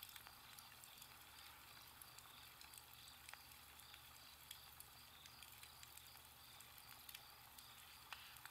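Faint crackling of a campfire over a steady low hiss, with scattered small ticks.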